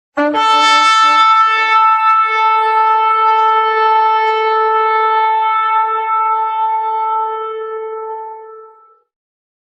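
Shofar sounding one long blast: it breaks in on a brief lower note, then holds a steady higher note for about nine seconds before fading out.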